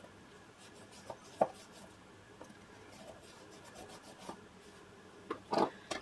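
Tailor's chalk rubbing short scratchy strokes onto folded cotton fabric along a metal ruler, with a sharp tap about a second and a half in. Near the end come a few louder knocks as the ruler and chalk are put down on the cutting mat.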